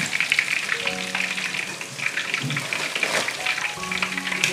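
Battered chicken pieces deep-frying in a wok of hot oil, a steady dense crackling sizzle as they are lifted out with a wire skimmer.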